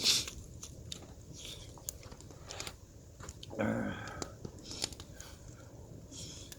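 A person eating oyster ramen: a short slurp of noodles right at the start, then chewing with scattered small clicks, and a brief hummed "mm" a little after three and a half seconds.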